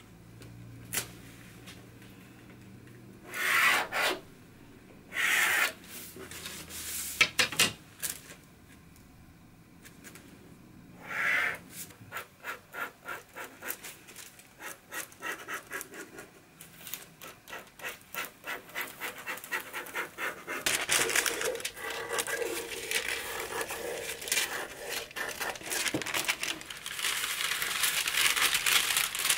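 Pattern drafting on paper: a wooden ruler scraped over the paper and set down with a few sharp taps, then a pencil drawing lines in short strokes about two a second. From about 21 seconds in, louder rustling and crinkling as paper pattern pieces are handled.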